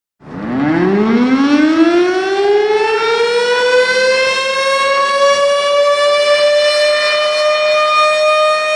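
Outdoor tornado warning siren winding up: its wailing tone climbs steeply in pitch over about three seconds, then holds a steady high note, sounding the alert for a tornado emergency.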